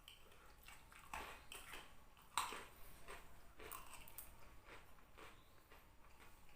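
Faint eating sounds: chewing, with scattered small clicks and knocks and one sharper click about two and a half seconds in.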